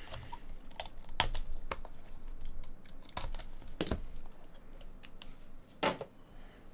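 A small cardboard trading-card box being handled and its lid slid off, giving a scattering of sharp taps and clicks, about half a dozen, with the loudest near the end.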